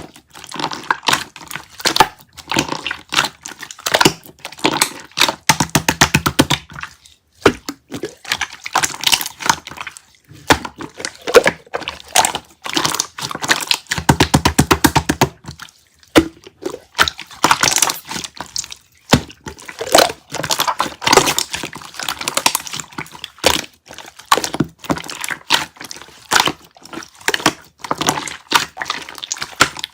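Clear slime being squeezed, pressed and folded by hand, giving a dense run of wet clicks and pops in bursts with brief pauses between.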